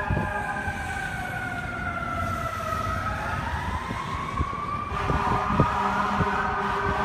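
Fire truck siren sliding slowly down in pitch for about three seconds and then climbing back up, with the fire apparatus air horn sounding steadily from about five seconds in.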